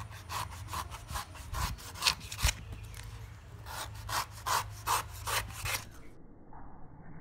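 Large knife slicing and shaving the husk of a king coconut: a quick series of scraping cuts, about two a second, that stop about six seconds in.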